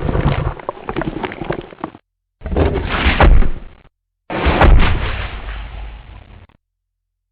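Sound-effect 'giant underwater crab' creature noise: three bursts of about one and a half to two seconds each, separated by short silences, with a deep rumble under dense crackling clicks. The last burst starts sharply and fades out.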